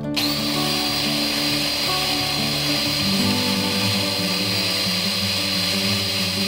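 Black+Decker electric mini food chopper starting abruptly and running steadily with a high whine while its lid button is held down, its blade churning a thick avocado hummus purée.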